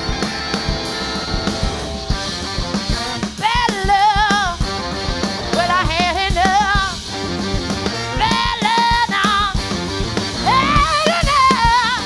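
Live soul-rock band playing with drums, bass and electric guitar. A harmonica line runs over them for the first few seconds, then a woman's lead vocal comes in with four phrases of long, wavering held notes.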